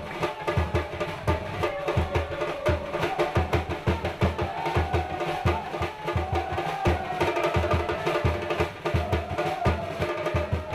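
Music with a steady drum beat, about one and a half thumps a second, under a wavering melody.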